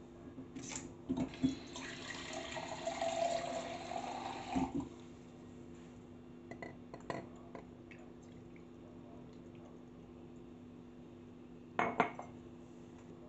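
Liquid poured from a cup into a tall glass over ice cubes for about four seconds, followed by a few light clinks and, near the end, a couple of louder knocks of glass or cup on the counter. A steady low hum runs underneath.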